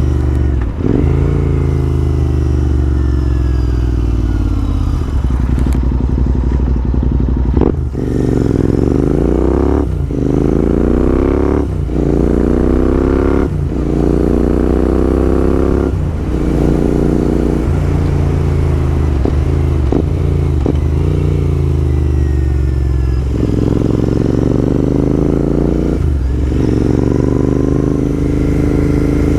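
Royal Enfield INT650's 648 cc parallel-twin engine running through a Red Rooster Performance Stellar exhaust with the baffles removed, under way: the revs climb again and again, each climb broken off by a brief dip at a gear change, with a few stretches where the revs fall away.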